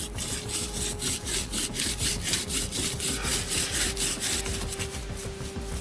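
Bow drill for friction fire: a wooden spindle driven by a shoelace bow rubs in the hearth board with fast, even back-and-forth strokes, about four or five a second.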